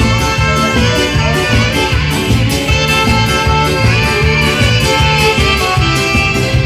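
Loud dance music with a steady, quick beat under a bright, ornamented lead melody.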